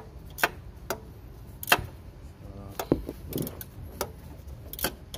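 Ratchet wrench clicking in single sharp clicks at uneven intervals as a 13 mm nut on the alternator is snugged down by hand.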